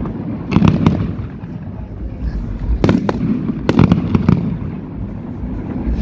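Fireworks display: aerial shells bursting in sharp bangs, in clusters about half a second in, around three seconds and around four seconds, over a continuous low rumble.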